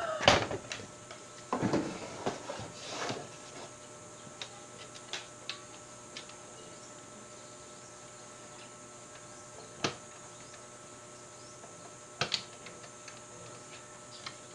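Sheet-metal top cover of a DVD player being lifted off with a sharp clatter, followed by scraping and handling noises. Then a few isolated clicks as the wiring and connectors inside are handled, the loudest about 10 and 12 seconds in.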